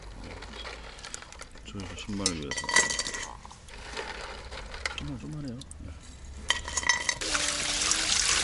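Razor clams clattering and clinking against a frying pan as they are scooped by hand from a bucket of water into it. Near the end a tap starts running, water pouring over the clams in the pan.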